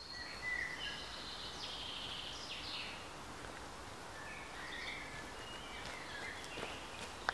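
Woodland songbirds singing: short high chirping and warbling phrases over a steady outdoor hiss, with one sharp click near the end.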